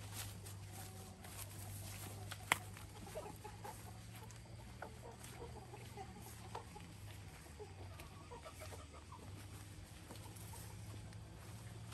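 Chickens clucking in short, scattered calls, with one sharp click about two and a half seconds in, over a low steady hum.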